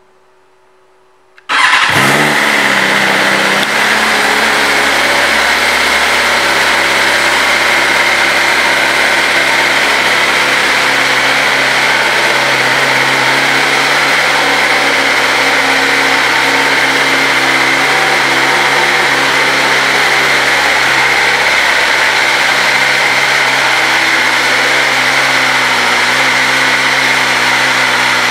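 A 2022 BMW S 1000 RR's inline-four engine, fitted with an Akrapovič exhaust, starts up about a second and a half in. It runs briefly at a slightly higher idle, then settles into a steady idle.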